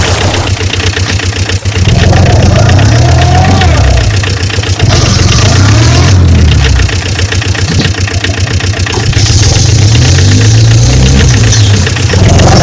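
Engine sound running with a rapid knocking pulse, its pitch rising and falling several times. The toy truck cannot make this itself, so it is a dubbed-in engine sound.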